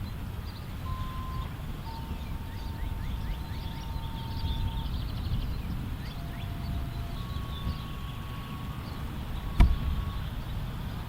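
Outdoor background: a steady low rumble with faint short chirps. Several faint steady tones sound one after another at different pitches. A single sharp knock comes about two-thirds of the way through.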